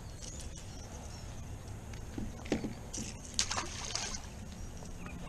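A largemouth bass splashing into the water as it is released, a few short splashes between about two and a half and four seconds in.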